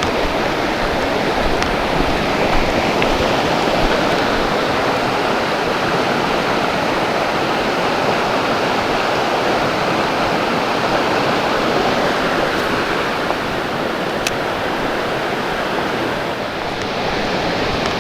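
Creek water rushing steadily, with one faint click about fourteen seconds in.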